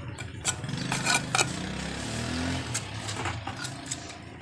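Steel hand trowel scraping and clinking against wet cement and the concrete slab beneath as cement is spread, a handful of short scrapes. An engine runs steadily in the background.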